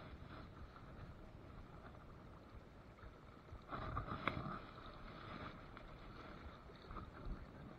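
Steady low noise of moving river water around a wading angler, with a brief louder burst and one sharp click about four seconds in.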